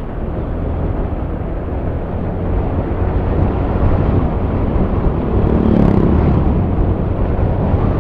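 Motorcycle riding on the road, its engine and the wind rushing past the rider's microphone in a steady roar that grows louder a few seconds in.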